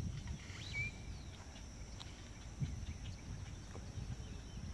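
Outdoor ambience: a steady high insect drone and a few short bird chirps over a low rumble, with a soft thump a little over halfway.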